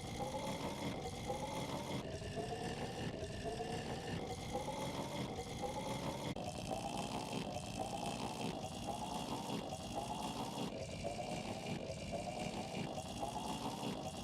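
Cartoon snoring, looped and pitch-shifted in a remix edit: a rising wheeze about once a second over a steady hiss, with the pitch jumping at a cut every second or two.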